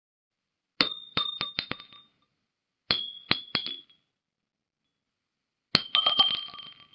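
Spent gun shell casings dropped three times, each landing in a quick series of clinking bounces with a short ringing tone that dies away. The third drop has the longest, most rattling run of bounces.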